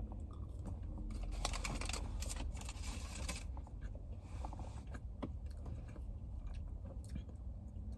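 A person chewing a fried, breaded jalapeño cheddar bite close to the microphone: soft crunching and mouth noises, thickest in the first half, over a steady low hum.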